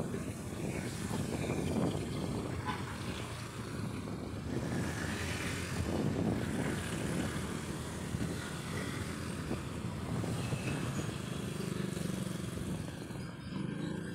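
Street traffic heard from a vehicle riding along in it: motorcycles and cars running past and ahead, a continuous low rumble with no break.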